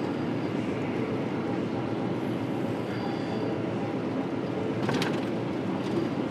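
Semi truck's diesel engine and road noise, a steady low rumble heard from inside the cab, with a brief click about five seconds in.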